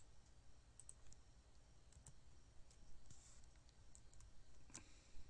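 Faint, scattered clicks of a computer mouse and keyboard, irregular, with the strongest click a little before the end, over a faint low hum.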